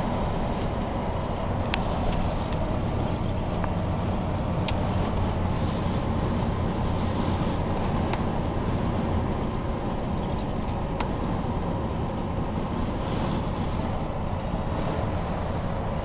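1987 Chevy pickup's 350 V8 running steadily with a loud exhaust leak from a broken exhaust manifold stud on the left-side manifold. A single sharp click about two seconds in.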